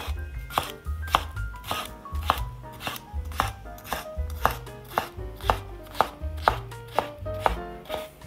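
Kitchen knife chopping on a wooden cutting board in an even rhythm of about two strokes a second, with background music underneath.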